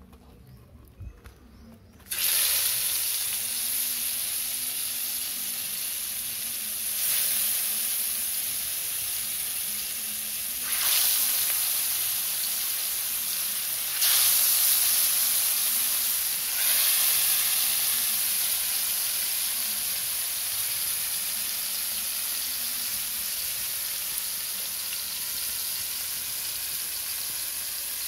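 Marinated catfish pieces frying in hot oil in an iron kadai. The sizzle starts suddenly and loud about two seconds in as the first piece goes into the oil, swells again four more times as further pieces are added, then settles into a steady sizzle that slowly eases.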